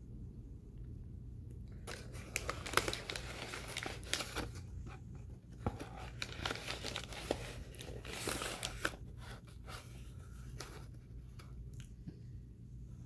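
The inner bag of a box of Argo laundry starch crinkling and rustling as it is pulled open and handled. The rustling starts about two seconds in and comes in bursts until about nine seconds in, with a few fainter rustles after.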